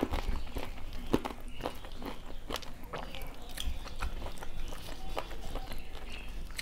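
Close-miked chewing and wet mouth sounds from a mouthful of rice and fried potato bhajiya, with fingers mixing food on a steel plate: irregular small clicks and smacks, one sharper click about a second in.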